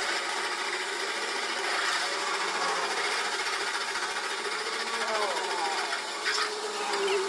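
A workshop machine running steadily, with a whine that falls in pitch about five seconds in and a few sharp clicks shortly after.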